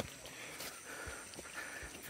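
Footsteps of a hiker on a jungle trail: a few irregular soft thumps, over a faint steady high tone.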